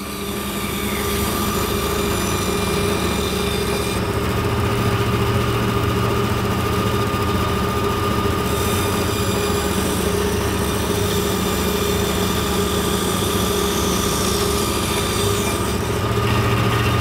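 Vertical bandsaw running steadily, a motor hum under the noise of its blade cutting straight passes into plywood.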